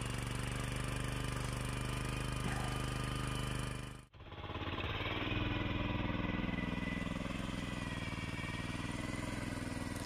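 Walk-behind tractor's small engine running steadily under load while it pulls a potato digger through the soil. The sound cuts off abruptly about four seconds in, and a second walk-behind tractor's engine takes over, also running steadily as it digs.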